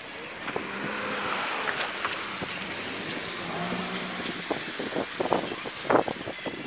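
Outdoor road traffic noise with wind on the microphone, a vehicle's hum rising in the first seconds, then a run of sharp knocks near the end, the loudest about six seconds in.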